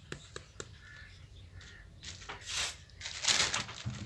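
A crow cawing twice in the background, two harsh calls, the second longer and louder.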